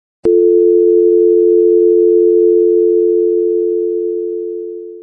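Telephone dial tone, a steady two-note hum. It starts suddenly, fades over the last couple of seconds and cuts off abruptly.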